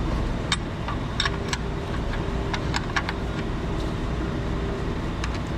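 Steady low hum of a working garage with scattered light clicks and taps, with a faint steady tone in the middle stretch.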